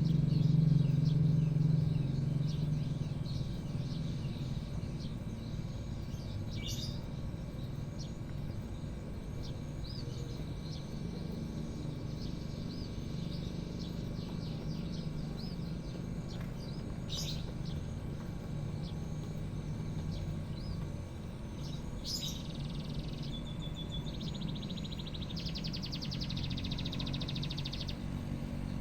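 White-rumped shama singing: a run of varied short chirps and whistles with a few sharp, loud notes, ending in a fast rattling trill for several seconds. Under it a low rumble, louder over the first few seconds, then steady.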